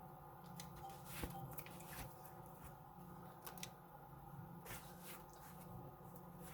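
Faint, steady drone of a Case 8950 Magnum tractor heard from inside its cab, with scattered light clicks and scratchy rustles over it.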